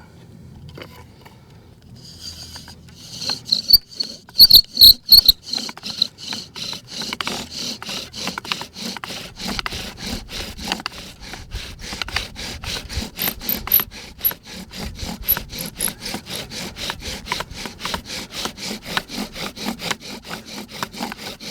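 Bow drill in use: the wooden spindle is sawn back and forth by the bow, grinding in the hearthboard notch as it builds heat toward an ember. It starts unevenly with a few loud squeaks about four to five seconds in, then settles into a steady rasping rhythm of about four strokes a second.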